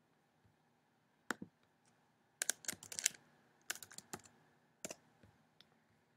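Faint typing on a computer keyboard, with quick keystrokes in short clusters about two and a half and four seconds in, and single clicks before and after.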